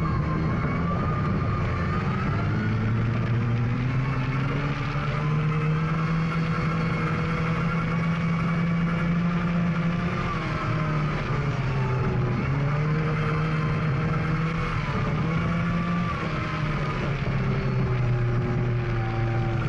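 Volga rally car's engine heard onboard, running hard at high revs along a gravel stage. The pitch drops and climbs again about eleven seconds in and again around sixteen seconds, as it lifts or changes gear.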